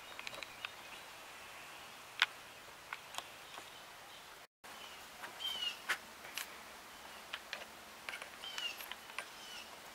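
Faint birds chirping, short falling chirps repeated several times in the second half, among scattered light clicks and taps. The sound cuts out completely for a moment about four and a half seconds in.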